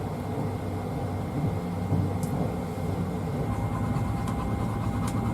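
Steady low rumble of a moving train heard from inside the carriage, with a few faint clicks.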